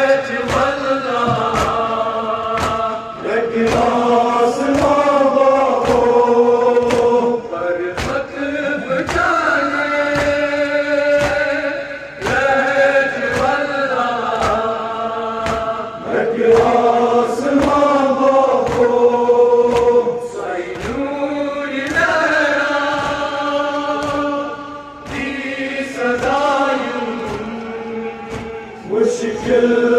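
A group of men's voices chanting a Kashmiri nohwa, a Muharram lament, in unison, with sharp slaps of hands on chests (matam) keeping time about once a second.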